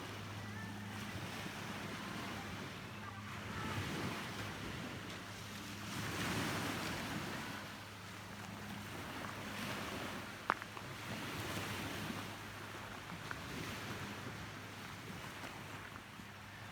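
Sea water washing and swelling in waves every couple of seconds, with wind buffeting the microphone over a steady low hum. A single sharp click about ten seconds in.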